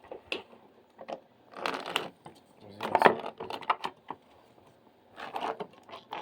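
Irregular scraping and clicking as a wall light switch and its wires are handled and pushed back into the wall box.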